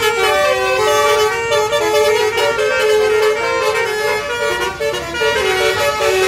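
Bus telolet basuri, a multi-tone musical air horn, playing a tune of held notes that step up and down in pitch without pause.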